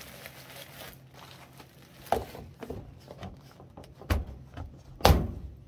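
Plastic Tupperware lid being fitted onto a container packed with bubble wrap and pressed shut: a few sharp plastic clacks and knocks with small ticks between, the loudest about five seconds in.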